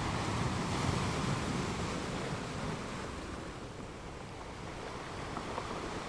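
Steady underwater ambient noise, a low rushing hiss with no distinct events. It is a little louder for the first two and a half seconds, then eases.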